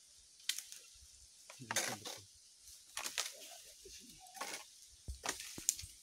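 Irregular rustling and crackling of leaves and twigs as a long bamboo pole is pushed and jiggled up among tree branches, with a few sharp knocks near the end.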